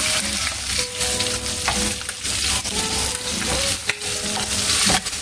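Chicken breasts sizzling in hot oil in a frying pan, with a slotted metal spatula clicking and scraping against the pan as they are turned over.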